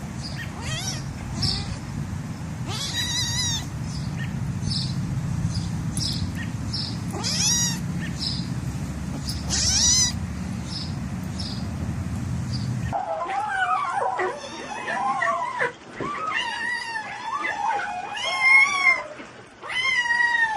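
A cat caterwauling: loud, long, wavering yowls repeated over and over in the second half. Before that comes a steady low hum with short high chirps about twice a second and a few higher squealing calls.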